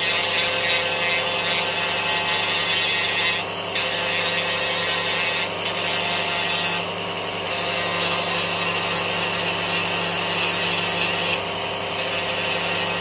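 Dremel rotary tool running at high speed with a sanding bit, grinding hardened polyurethane glue off a plastic model coach side. A steady motor whine runs under a rasping grind that eases briefly a few times as the bit's contact with the plastic changes.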